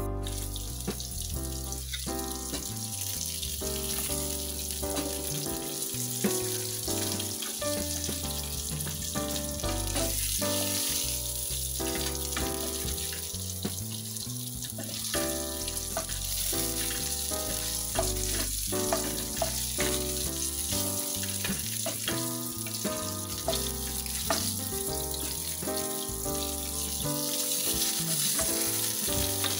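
Flounder pieces sizzling in hot oil in a frying pan, a steady hiss, under background music with a stepping bass line.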